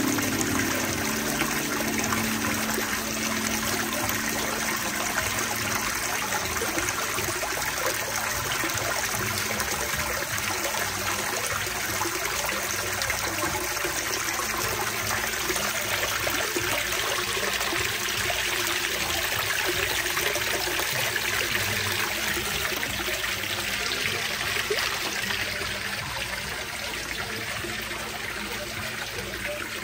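Water running steadily over a small stacked-stone waterfall and splashing into a pond, growing a little quieter near the end.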